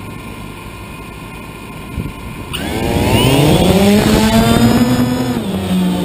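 DJI Phantom quadcopter's propellers spinning up with a rising whine about two and a half seconds in, then running steady as it lifts off, the pitch easing slightly near the end.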